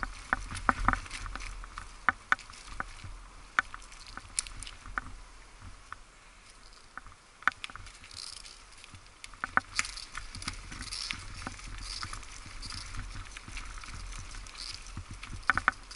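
Bicycle rolling over a bumpy dirt woodland trail: irregular clicks, knocks and rattles from the bike and its tyres over a low rumble.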